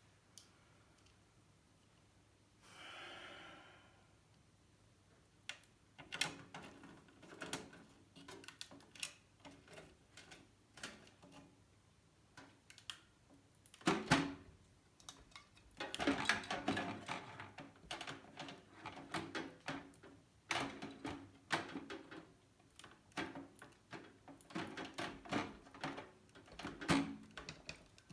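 Irregular clicks, taps and knocks of a motherboard and screws being handled and fitted into a Corsair Carbide 275R ATX PC case, with a brief rustle about three seconds in. The knocks are loudest about halfway through.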